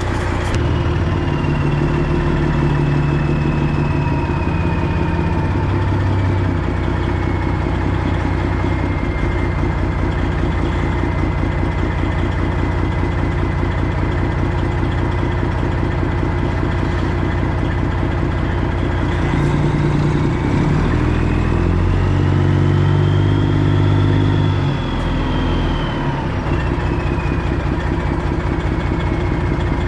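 Semi truck's diesel engine running at low speed while the truck is maneuvered in reverse and around. A high whistle slowly falls over the first several seconds, and about twenty seconds in the engine is given more throttle, its sound swelling and the whistle rising and falling again.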